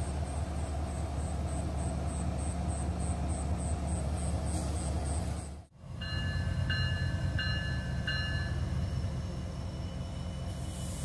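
Diesel-electric freight locomotives running with a steady low engine drone, first one passing close by and then, after a brief break, the lead engines of an approaching train. Just after the break, a high ringing tone pulses four times, a little under a second apart.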